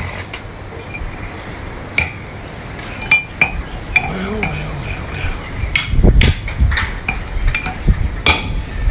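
Metal gearbox parts and tools clinking and knocking together as a center pivot gearbox is being assembled. Sharp taps come at irregular intervals and grow busier and louder in the second half.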